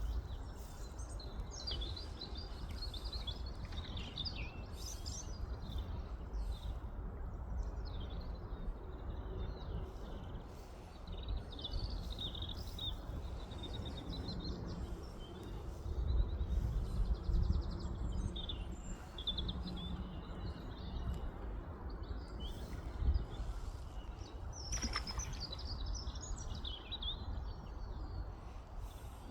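Small songbirds chirping and singing on and off throughout, over a steady low rumble.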